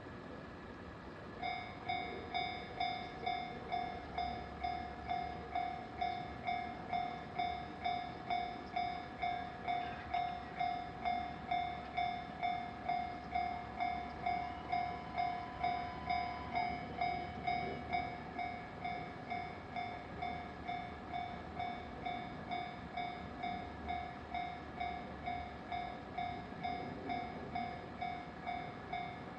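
Japanese level-crossing warning bell starting up about a second and a half in, then dinging steadily at about two strikes a second, a little softer in the second half. A low train rumble runs underneath for much of the time.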